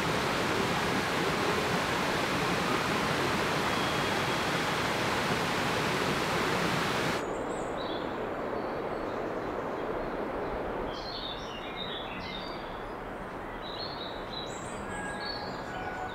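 A loud, even rushing noise that cuts off abruptly about seven seconds in, giving way to quieter outdoor forest ambience with short, high bird chirps from about eleven seconds on.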